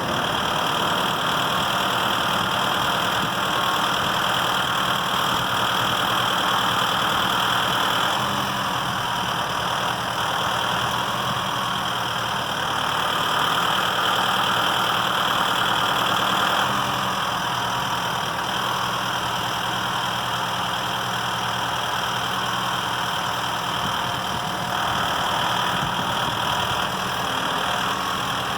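Tractor engine running steadily, its note shifting a few times as the load changes.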